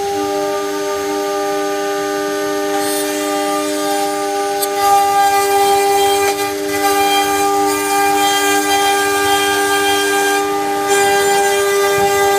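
CNC router spindle whining steadily at a constant pitch while its bit cuts 4 mm flat fibreglass sheet. A harsh hiss from the cut joins about three seconds in and comes and goes as the bit moves along its path.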